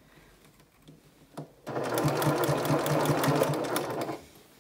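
Janome HD9 Professional straight-stitch sewing machine stitching a seam in one burst of about two and a half seconds. It starts about a second and a half in and stops shortly before the end.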